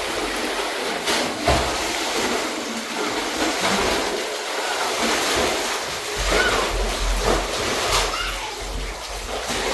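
Steady rush of running water, with a few faint voices heard briefly over it.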